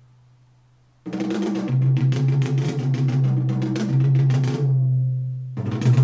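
Drum-heavy music played through a pair of Canton Karat 100 three-way closed compact loudspeakers. It cuts in suddenly about a second in, with drum strikes over a held bass note, thins out briefly near the end, then the drums strike again.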